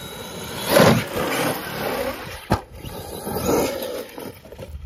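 Traxxas Sledge RC monster truck's brushless motor and tyres in bursts of throttle across grass, surging loudest about a second in and again later, with a sharp knock about two and a half seconds in as the truck tumbles.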